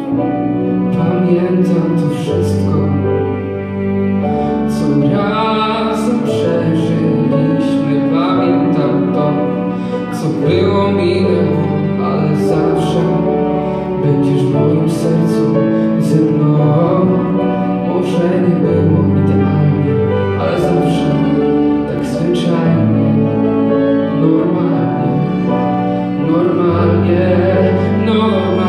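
Small live band playing: grand piano, violin, cello and bass guitar, with the bass holding long notes that change every couple of seconds, and a male voice singing over them.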